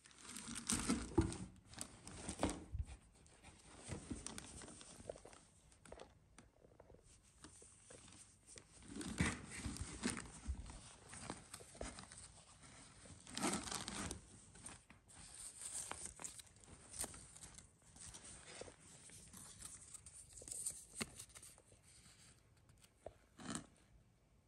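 Clear plastic packaging crinkling and a cotton pullover rustling as they are handled and pulled out of a cardboard box, in irregular bursts of rustling that are loudest in the first few seconds and again twice near the middle.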